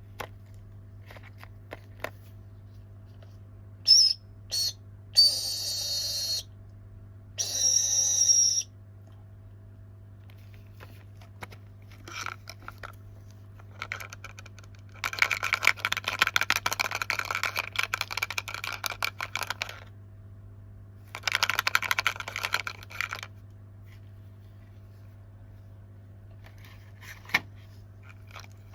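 Snack packaging being handled: a few short, high-pitched whistling squeaks, then two long stretches of dense crinkling and crackling, like plastic wrappers being opened, with scattered light clicks between.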